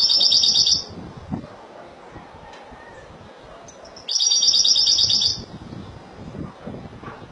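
European goldfinch singing two short bursts of rapid, high trilled song, each about a second long, one at the start and the second about four seconds in.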